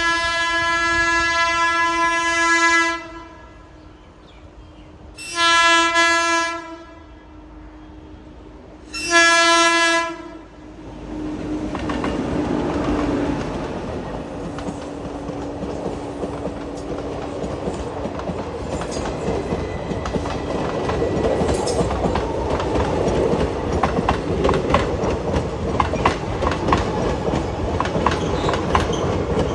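An Indian Railways WAP-7 electric locomotive sounds its horn three times: a long blast, then two shorter ones a few seconds apart. After that the train rolls in, and its wheels clatter over the rail joints, growing louder toward the end.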